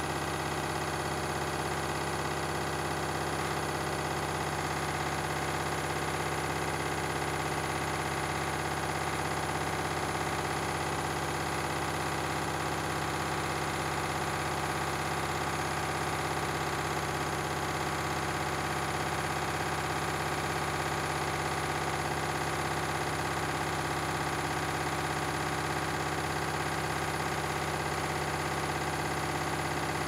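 Candy front-loading washing machine in its spin cycle, the drum turning at a steady high speed with a constant motor hum and whine that holds the same pitch throughout.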